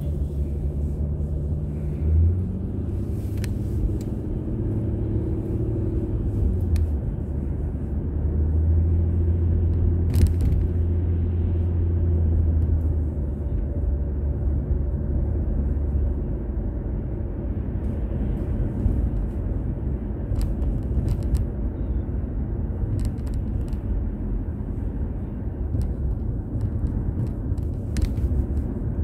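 A car's running engine and road rumble heard from inside the moving car: a steady low drone whose engine tones rise and fall a little in the first dozen seconds, with a few light clicks.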